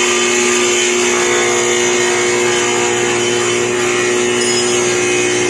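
Combination woodworking machine's planer running steadily, a constant motor and cutter-block hum with a hiss above it, while a long wooden board is fed through.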